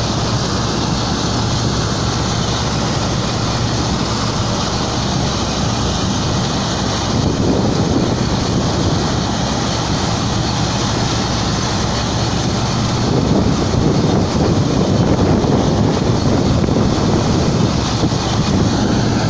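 Niva SK-5 combine harvester running while harvesting wheat: a steady engine and threshing-machinery drone that grows louder and heavier about a third of the way in and again past the middle.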